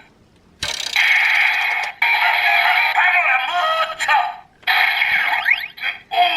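DX GabuGabuRevolver toy morpher playing its electronic sound effects, jingle and announcer voice through its small, tinny speaker, starting after a click about half a second in, in several bursts with short gaps.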